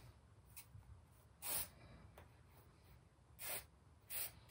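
Compressed charcoal stick swept across newsprint in four short hissing strokes, the loudest about a second and a half in.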